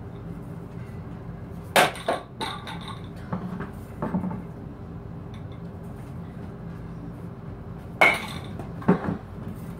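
A baseball bat striking a ball off a batting tee, twice: a sharp crack about two seconds in and another near the end, each followed by a softer knock. Lighter knocks come in between.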